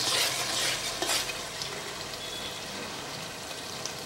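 Thick onion masala frying in ghee in an aluminium pot, a spatula scraping through it for about the first second, then a steady sizzle with small pops. The masala is fully cooked down, with the ghee separating and floating around it.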